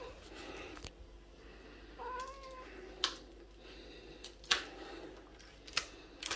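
A cat meows once about two seconds in, a short call that rises and falls. A few sharp clicks follow.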